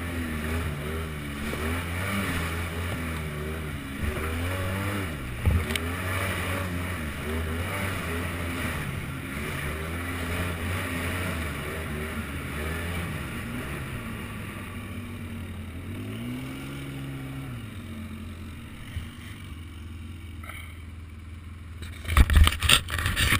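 Polaris Sportsman ATV engine running under way, its pitch rising and falling with the throttle, with one clear rev swell about two-thirds of the way through before it settles lower. Near the end, a burst of loud knocks.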